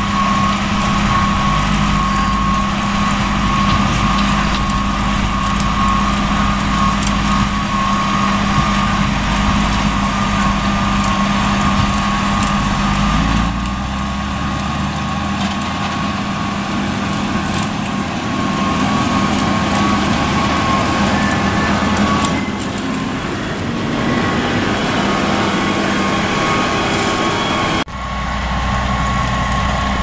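Diesel engines of a Case IH tractor pulling a sugar beet harvester and of the beet truck beside it, running steadily under load while beets are loaded: a steady drone with a thin high tone over it.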